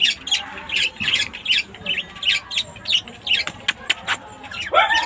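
Pet lovebirds chirping and squawking: a quick run of short, high, sharp chirps, several a second, with one longer, lower call that rises and then holds near the end.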